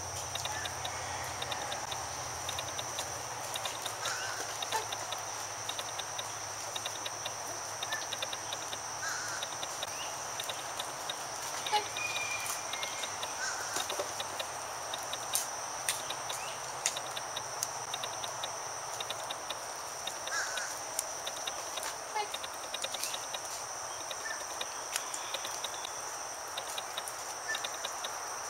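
Steady high-pitched insect drone, with scattered short bird chirps and a few sharp clicks.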